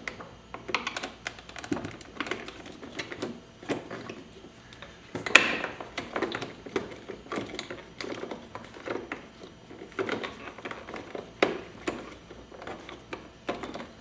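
Irregular light plastic clicks and taps as a screwdriver pries at the latching ears of the Tesla Model 3's driver-door window switch assembly in the armrest, with one louder sharp click about five seconds in.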